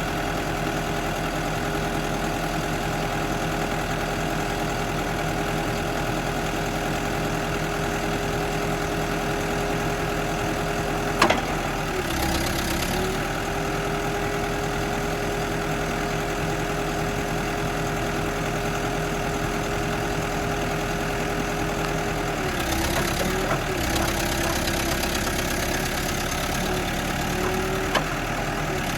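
New Holland B95 loader backhoe's diesel engine idling steadily. Its note dips briefly twice, and there is a sharp click twice.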